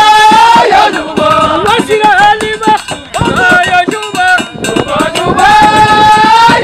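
A lead male voice singing a traditional Hmada folk chant in long held, wavering notes, with shorter sung phrases and sharp percussive strikes in between. Near the end the voice slides upward into another long held note.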